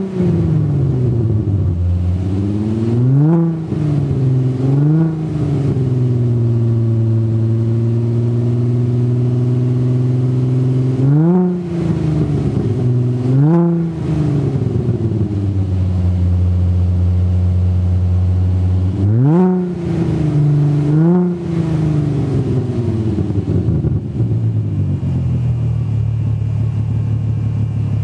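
VW Mk3 Golf with a swapped-in 24-valve VR6 engine, heard at the tailpipe: idling, with three pairs of quick throttle blips, at about 3 and 5 s, 11 and 13 s, and 19 and 21 s in. Each blip sweeps the revs up and drops straight back, and after the last pair the revs sink slowly back to a steady idle.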